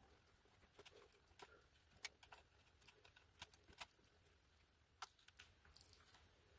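Faint, scattered clicks and taps of hands handling a touchscreen's ribbon cable and plastic connector against a 3D printer's frame, over quiet room hiss.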